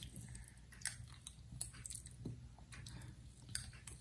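A child eating breakfast cereal with a spoon: faint scattered clicks of the spoon against the bowl, with chewing.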